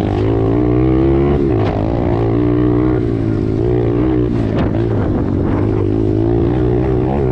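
Small pit bike engine running while being ridden, its pitch wavering slightly up and down as the throttle changes.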